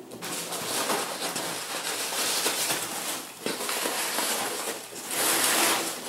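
Foam packing peanuts and crumpled cardboard rustling and crackling as a hand digs into the open end of a shipping box. The sound is continuous and swells about five seconds in.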